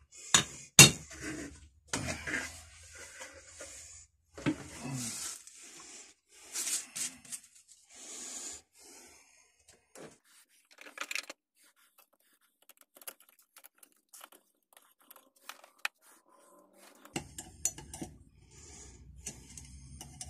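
Metal parts of a Record No. 1 bench vise clinking and scraping as it is reassembled by hand. Two sharp clinks come at the start, then scraping and rattling as the parts are worked together, then scattered small clicks. A low hum comes in near the end.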